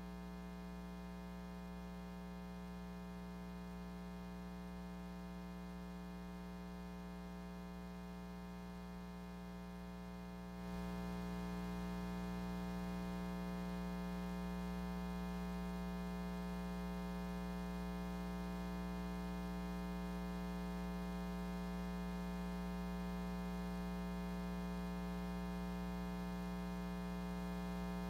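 Steady electrical mains hum with many overtones, a constant buzz on the audio feed, stepping up in loudness about ten seconds in.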